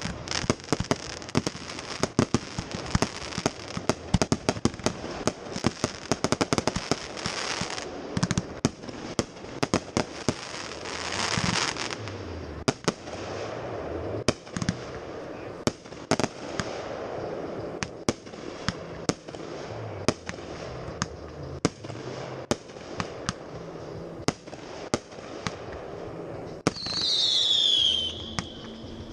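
Fireworks going off: a steady run of sharp bangs and pops from launches and bursts, with crackling in between. There is a hissing rush about eleven seconds in and a descending whistle near the end.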